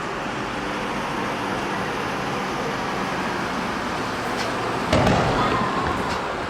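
Steady outdoor background hiss, then a firework shell bursts with a loud boom about five seconds in, its rumble fading over about a second.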